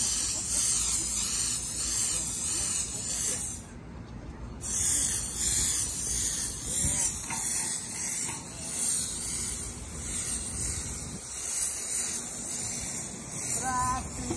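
Cav-Grip spray adhesive hissing steadily out of a spray wand fed from a pressurized cylinder. The spray stops for about a second around four seconds in, then resumes.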